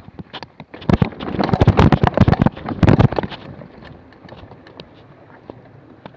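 Mountain bike clattering and knocking as it rolls slowly over rocks, a dense run of jolts about a second in that dies down to scattered light ticks after about three seconds.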